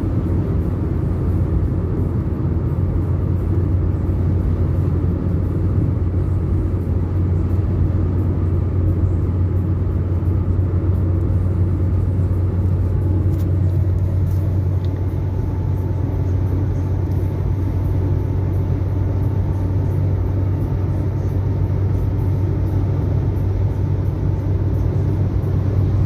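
Steady low rumble of a moving vehicle, engine and road noise running evenly, with a faint steady whine joining about halfway through.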